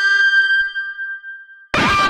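Harsh electronic noise music: a held cluster of steady high tones fades out over about a second and a half, then a loud dense layer of quickly falling pitch sweeps cuts in abruptly near the end.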